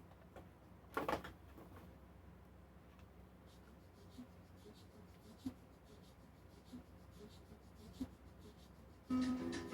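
Faint handling of toy packaging: a short crinkle about a second in, then scattered small clicks. Music with steady held tones comes in near the end.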